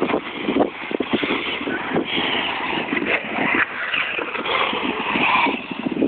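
Brushless electric RC cars, an HPI Savage Flux monster truck and an Ofna buggy on a modified 22.2 V setup, driving on a dirt track, with motor whine that comes and goes with the throttle.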